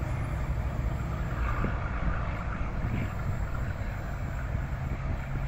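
Diesel train pulling away into the distance, its engine a steady low drone that slowly fades.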